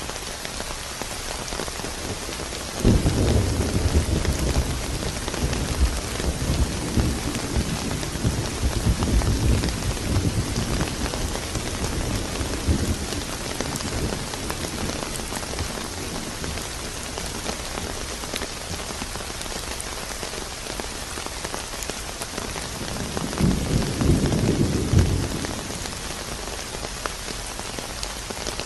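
Steady rain, with thunder: a sudden loud crack about three seconds in that rolls on as a low rumble for some ten seconds, and a second, shorter rumble near the end.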